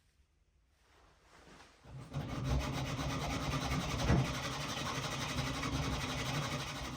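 Electric sander switched on about two seconds in and running steadily against wood, a humming motor under a rubbing grind.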